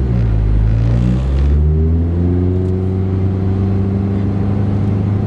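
2008 Honda Civic Si's four-cylinder engine, with catless race header and cat-back exhaust, pulling under acceleration, its revs climbing slowly and steadily.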